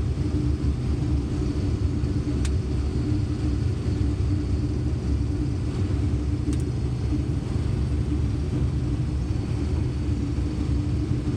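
Combine harvester running steadily while harvesting corn: a constant low rumble with a steady hum, and two faint ticks partway through.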